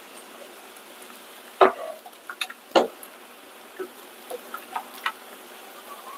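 A utensil clicking and knocking against a pan of cheese sauce as it is stirred on the stove: two louder knocks in the first half, then a scatter of lighter ticks.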